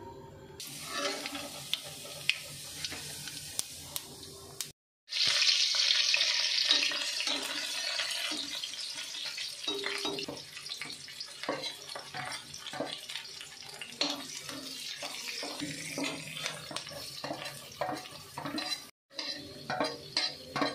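Hot oil sizzling in a steel kadhai as chopped garlic and ginger fry, with a metal spatula clinking and scraping against the pan as it stirs. The sizzle is loudest right after a cut about five seconds in, then settles to a steadier hiss.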